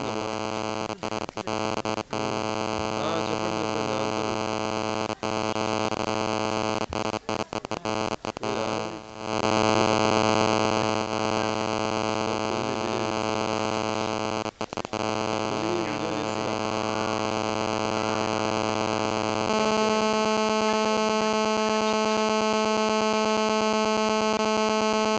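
A steady electronic buzz with many evenly spaced overtones, broken by several brief dropouts. About 19 seconds in it switches to a different, more widely spaced buzz, which stops abruptly at the end.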